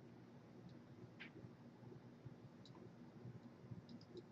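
Near silence with a few faint computer mouse or keyboard clicks.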